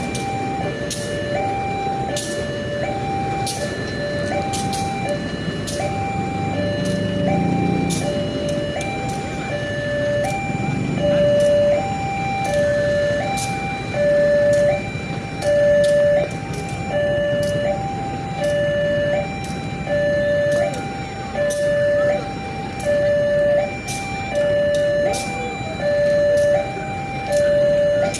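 Railway level-crossing warning alarm sounding: an electronic two-tone signal alternating between a lower and a higher note, each held about two-thirds of a second, with sharp regular clicks and a low rumble underneath.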